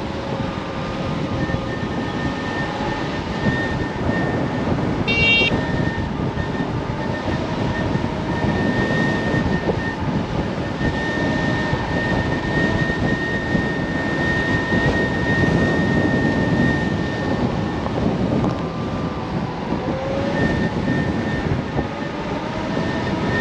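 Kaabo Wolf King GT dual-motor electric scooter ridden at high speed: steady rushing wind noise with a high, steady electric motor whine and lower whine tones that rise and fall with speed. A brief high-pitched tone sounds about five seconds in.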